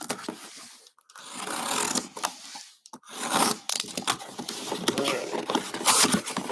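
Utility knife slitting packing tape on a cardboard box, then cardboard flaps and a foam packing insert scraping and rustling as the box is opened, in three stretches with short pauses about one and three seconds in.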